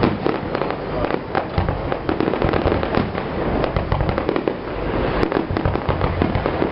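Fireworks display: a dense, continuous barrage of bangs and crackling shells with a low rumble, many reports overlapping every second.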